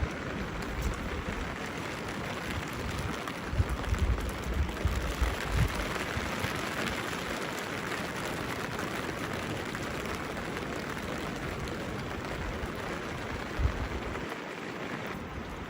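Steady rain falling, an even hiss without a rhythm, with a few short low rumbles between about three and six seconds in and once more near the end.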